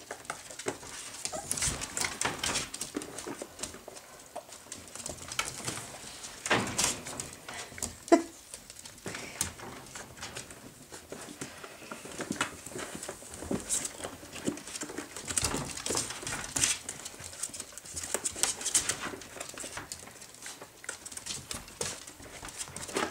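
Miniature Jack Russell terrier puppies scampering and scrabbling, their claws clicking and pattering on a wooden floor and scratching in a plastic laundry basket. One short, sharp puppy yelp about eight seconds in is the loudest sound.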